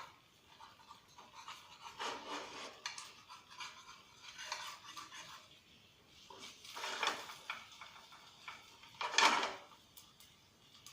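Spatula scraping and pushing against a pan in a few short strokes, the loudest near the end, as a filled patishapta crepe is rolled up and lifted in the pan.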